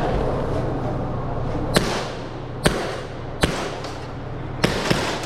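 Airsoft pistol shots: five sharp cracks at uneven spacing, the last two in quick succession, fired while a shooter works through a stage.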